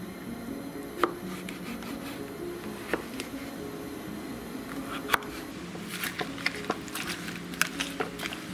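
Large kitchen knife cutting through watermelon rind and chopping down onto a wooden cutting board: single sharp chops about a second in, near three seconds and about five seconds in, then a quicker run of small knocks and crackles in the second half. Soft background music plays underneath.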